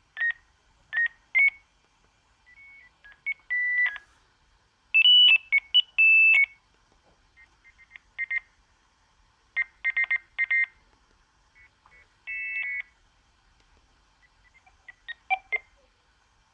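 Sagem my101X mobile phone playing a ringtone: a tune of short, high electronic beeps in phrases with pauses between them, a few notes sounding as two- or three-tone chords. The loudest run of notes comes about five seconds in.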